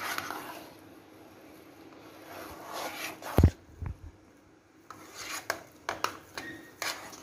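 A spoon churning thick, chilled milk cream (malai) by hand in a steel bowl, scraping and rubbing against the metal as the cream stiffens on its way to separating into butter. There is a sharp knock about three and a half seconds in.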